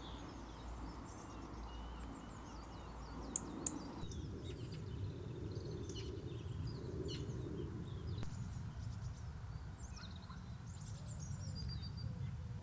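Small birds chirping and twittering over a steady low outdoor background noise, with two sharp clicks about three and a half seconds in.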